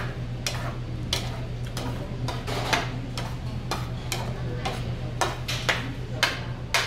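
Plastic ladle stirring tteokbokki in a wide pan on a portable gas stove, knocking and scraping against the pan in irregular clicks, two or three a second, over a steady low hum.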